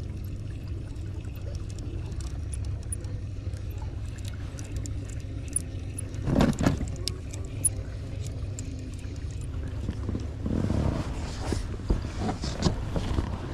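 Knocks and clicks from fishing tackle being handled in a boat over a steady low rumble, with a louder knock about six and a half seconds in and a cluster of knocks near the end.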